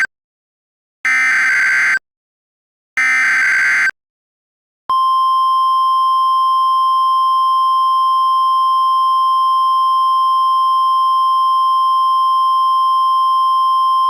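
Emergency Alert System alert: the screechy digital data bursts of the SAME header, about a second each and a second apart, then a loud steady single-pitch attention tone that starts about five seconds in.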